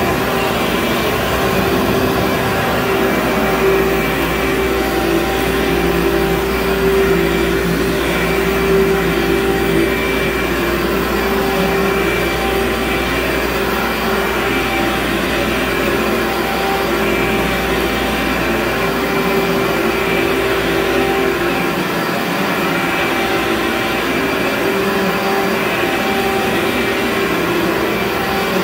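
Upright carpet cleaning machine running steadily while pushed back and forth over carpet, a constant motor whine over rushing air. A deeper rumble underneath drops away about three-quarters of the way through.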